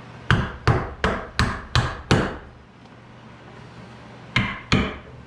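Claw hammer tapping on small wooden toy car parts: six quick strikes, about three a second, then two more a couple of seconds later.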